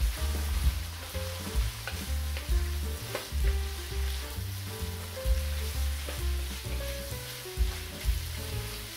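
Shredded cabbage and vegetables sizzling in a non-stick wok as a wooden spatula stirs and tosses them, with scattered clicks of the spatula against the pan. Background music with a steady bass line plays underneath.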